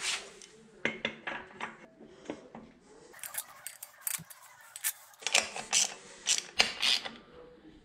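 Irregular metallic clinks and ticks as a steel flywheel is fitted onto the engine's crankshaft and its bolts are started and turned with a hand tool, metal tapping on metal.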